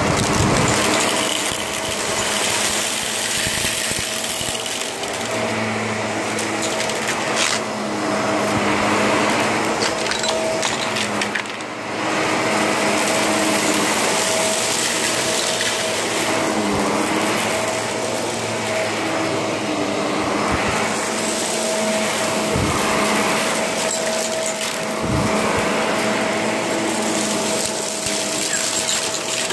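Shark vacuum cleaner running, its motor holding one steady whine while the lower sound shifts every few seconds, with a few brief clicks of debris being sucked up.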